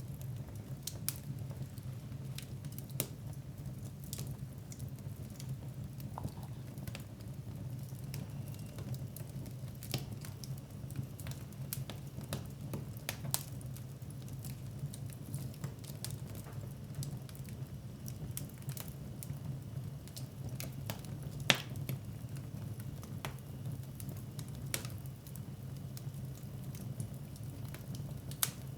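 Wood fire burning in a fireplace: irregular sharp crackles and pops over a steady low rumble, with one louder pop a little past the middle.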